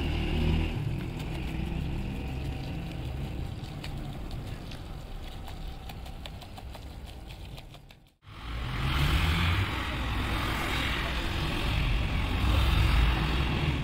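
Water spraying from a hose onto a soaked rug over a steady low motor hum. After a cut about eight seconds in, a rotary floor scrubber runs steadily, its spinning brush hissing through soap foam on the rug.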